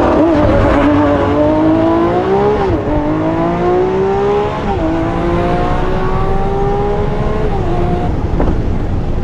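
Lamborghini Aventador SVJ's V12 engine under hard acceleration, heard from inside the cabin: the pitch climbs, drops sharply as it shifts up about 2.7 s and 4.7 s in, and climbs again, with a last drop near the end, over steady road rumble.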